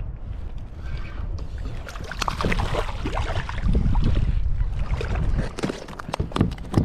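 Water sloshing and splashing around a fishing kayak, with a few sharp knocks of handling on the hull near the end.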